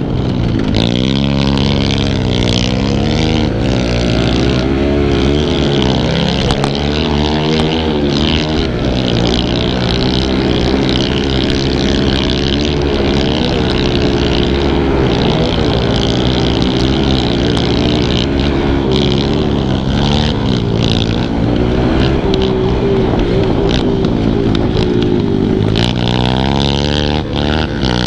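Kawasaki KLX110 pit bike's small air-cooled four-stroke single-cylinder engine, heard from on board, revving up and dropping back again and again as the rider accelerates, shifts and backs off along the track.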